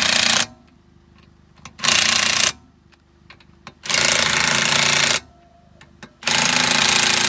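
Impact wrench hammering lug nuts tight on a spare wheel, in four bursts of about a second each with short pauses between, one nut at a time.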